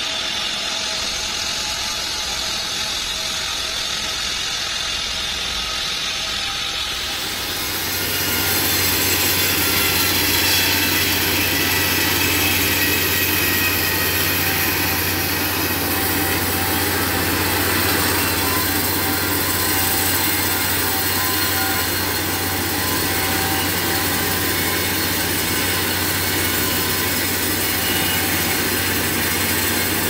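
Homemade bandsaw sawmill running and ripping lengthwise through a trembesi (rain tree) log: a steady motor hum under the hiss of the band blade in the wood. About seven seconds in the sound gets louder and fuller, then holds steady.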